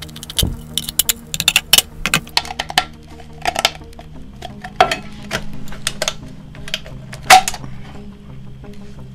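Thin steel tin cans clinking and clattering as they are handled and fitted together on a wooden bench, with a string of quick clinks in the first few seconds and a loud clank about seven seconds in. Soft background music underneath.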